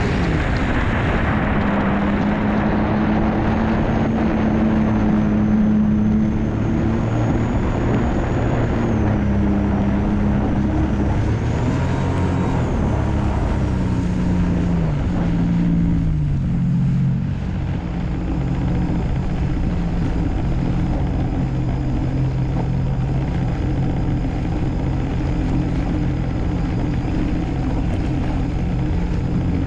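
Personal watercraft's Rotax 1503 three-cylinder four-stroke engine running at speed, then backing off: its pitch falls in steps about a third and half a way in, then settles into a steady low run as the craft slows almost to a stop, with water splashing against the hull. The owner finds this engine won't rev up to 8000 rpm.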